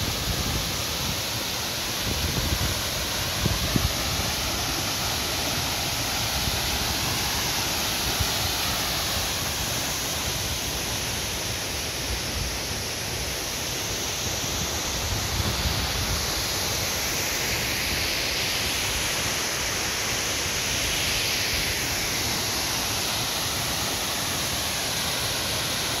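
Waterfall: a steady rush of falling water, with a few brief low thumps about three seconds in.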